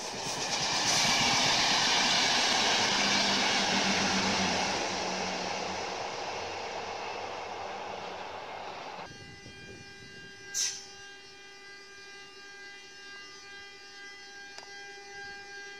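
An electric locomotive and train passing close by: loud wheel-and-rail noise that fades over several seconds as it goes away. About nine seconds in, the noise cuts off abruptly and gives way to a steady electric hum of several tones from another electric locomotive approaching. One brief sharp high sound comes shortly after the change.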